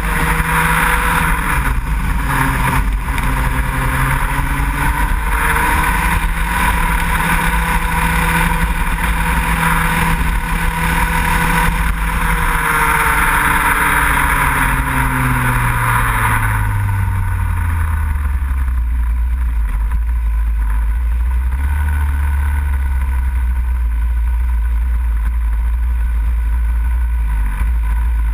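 Racing kart engine heard onboard, running at high revs with its pitch rising and dipping through the corners. About two-thirds of the way through the revs fall away to a low, steady drone as the kart slows.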